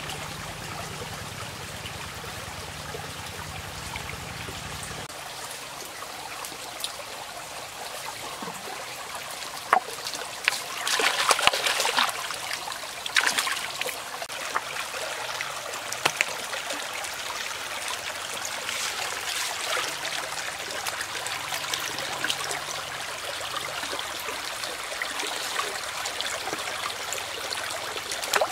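Shallow rocky stream running and trickling over stones, with a cluster of louder splashes and knocks about ten to thirteen seconds in and a few more scattered after.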